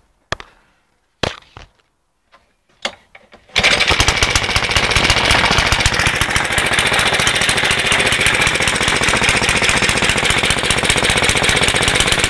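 Suffolk Colt lawnmower engine being started: a few brief cranking sounds, then it catches about three and a half seconds in and keeps running steadily with a rapid beat.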